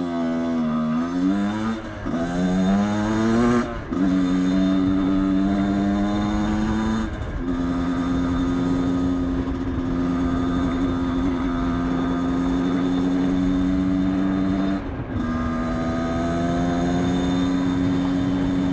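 Aprilia RX 50's 50 cc two-stroke Minarelli AM6 engine under way, winding up in pitch through the gears with a short break at each shift, then holding a steady high drone at cruising speed, broken twice by a brief drop as the throttle is eased or a gear changed.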